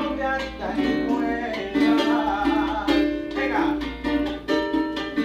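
Venezuelan cuatro strummed in a steady, rhythmic chord pattern.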